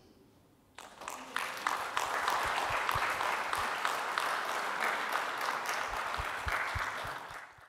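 Audience applauding: many overlapping claps begin about a second in, hold at a steady level, and are cut off suddenly near the end.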